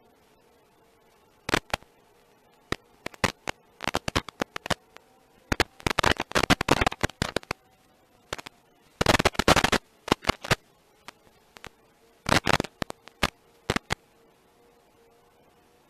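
Irregular bursts of crackling static and pops over a faint steady electronic hum, typical of the audio channel of an analog FPV video receiver. The crackles come in clusters several times through the middle, with thicker patches about six and nine seconds in.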